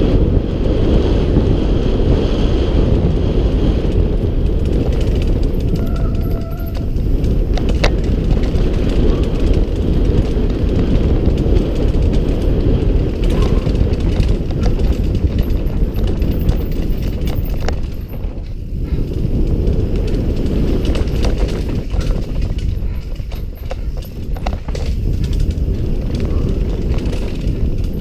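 Downhill mountain bike descending a dirt trail at speed: wind rushing over the helmet-mounted microphone and the tyres rumbling over the dirt, with scattered clicks and rattles from the bike over bumps.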